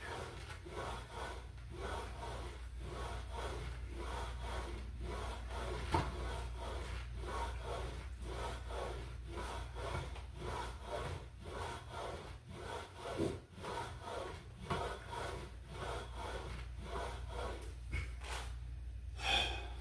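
Flybird ab crunch machine rubbing and creaking in a steady rhythm with heavy breathing, as crunches are done at about one a second.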